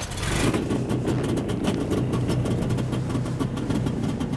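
Snowmobile engine running steadily.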